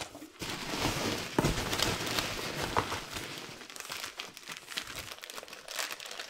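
Crinkling of a clear plastic bag and rustling of polystyrene packing peanuts as hands rummage through a cardboard box: a busy run of crackles and rustles for the first few seconds, then lighter crinkling.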